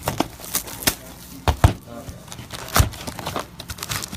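Sharp, irregular clicks and knocks from handling a trading-card box and its packs on a tabletop as the box is opened, loudest about a second and a half in and again near three seconds.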